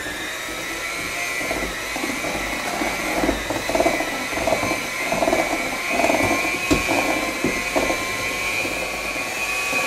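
Electric hand mixer running on low speed, its beaters churning a thick cream cheese and powdered sugar frosting in a stainless steel bowl. It makes a steady motor whine over an uneven churning, with a few sharp knocks as the beaters hit the bowl.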